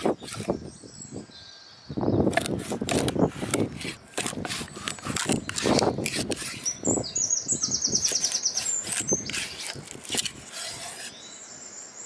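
Chef's knife cutting a whole Caspian kutum crosswise into steaks on a wooden stump block: crunching through the scaly skin and backbone, with repeated knocks of the blade on the wood. A bird trills briefly about seven seconds in.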